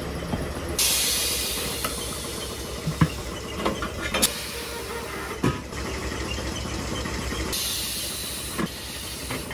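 Compressed air hissing at a tyre changer, starting abruptly about a second in and slowly fading, with a second burst of hissing near the end. A few sharp metal clanks from the steel tyre tools.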